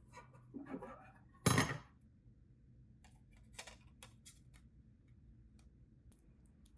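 Split keyboard kit parts being handled and fitted together by hand: small hard pieces clinking and clattering, loudest in a short clatter about a second and a half in, then scattered light clicks.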